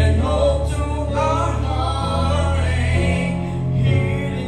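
Gospel song sung through a microphone PA over an accompaniment track: sustained bass notes under a man's singing voice.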